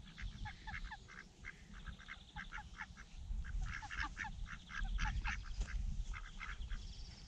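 A flock of domestic ducks quacking, a steady run of short calls, a few each second.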